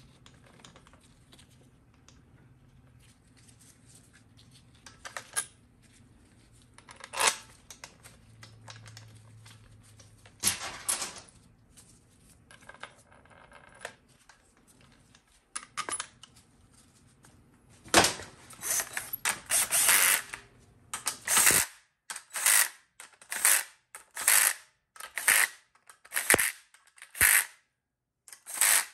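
Cordless driver spinning the short valve-body bolts of a GM TH350 transmission down in short bursts, about one a second, starting about two-thirds of the way in. Before that, occasional sharp metal clinks as the bolts are set in by hand.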